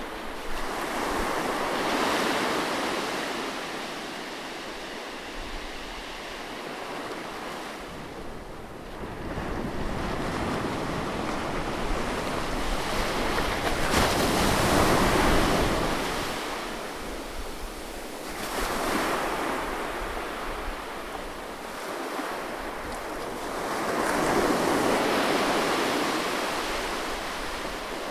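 Sea waves breaking close to the shore. About four waves surge in and wash back, the loudest near the middle.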